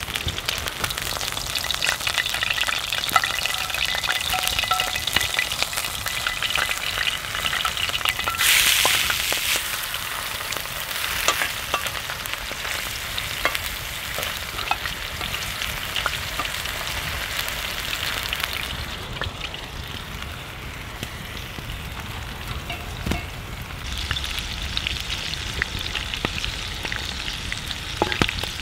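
Minced goose burger patty sizzling in a cast iron skillet over an open wood fire, a steady hiss flecked with crackles. The sizzle surges louder about a third of the way in and turns duller for a while in the second half.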